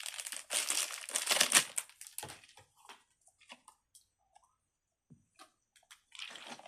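Crinkling and crumpling of thin plastic being handled, dense for about the first two seconds, then thinning to scattered light rustles and clicks, with another short rustle near the end.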